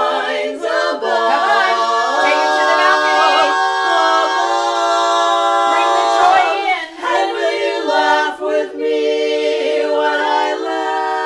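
Women's a cappella quartet singing a slow ballad in harmony, holding long sustained chords, with short breaks between phrases a little past halfway.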